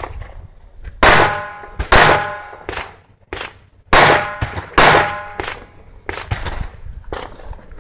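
Handgun fired four times in two pairs, the shots in each pair a little under a second apart and the pairs about two seconds apart, each shot followed by a brief ring. A few fainter knocks follow the last shot.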